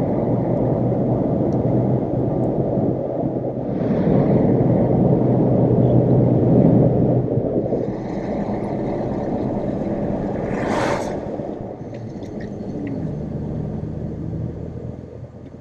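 Toyota Tacoma pickup on the road: steady road and engine rumble that swells for a few seconds, then eases, with a brief hiss about eleven seconds in.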